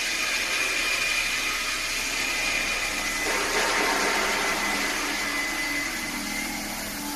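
Stainless steel bubble washing machine running: a steady motor whir with a high whine, and a rush of noise that swells about three seconds in and fades again by about five.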